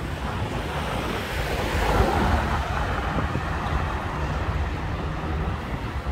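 Wind buffeting the microphone over the steady rush of road traffic, swelling briefly about two seconds in.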